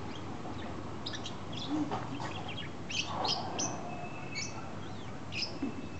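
Small birds chirping: many short, high chirps throughout and one longer held note a little past the middle.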